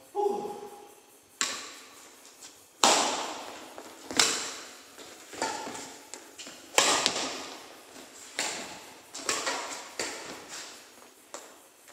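Badminton rackets striking a shuttlecock back and forth in a singles rally: about ten sharp hits, roughly one a second, each trailing off in a short echo.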